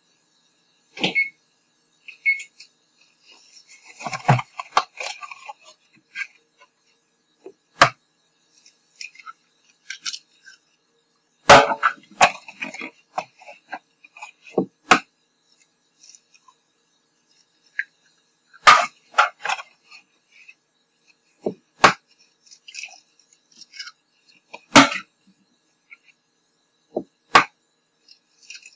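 Eggs being cracked on the rim of a stainless steel mixing bowl: a series of sharp knocks a few seconds apart, with small crackling and clinking handling sounds between them.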